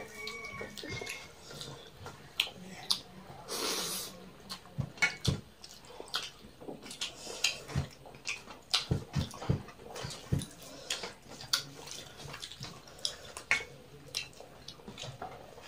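Close-up wet eating sounds: hands mixing and squishing rice with curry, and chewing and lip smacks, as a string of irregular short clicks and squelches.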